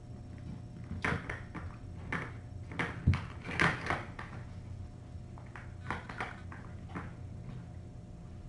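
Kittens wrestling and pouncing on a hard floor close to the microphone: a run of thumps and scuffles about a second in, the loudest thump at about three seconds, and a few more around six to seven seconds.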